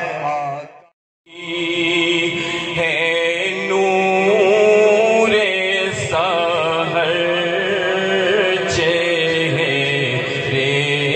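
A man's voice chanting melodically through a microphone and loudspeakers. It stops dead just under a second in for a brief silence, then a second man's voice takes up a chanted recitation with long, wavering held notes.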